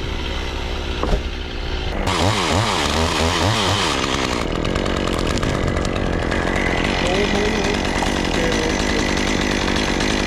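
Gas chainsaw running: low and steady at first, then revved up and down several times about two seconds in, then held at a steady high speed.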